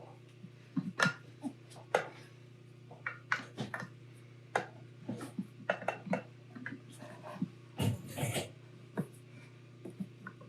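Irregular scrapes, rubs and clicks of a rubber tire being worked by hand onto a Onewheel hub motor, with a brief rushing scrape about eight seconds in.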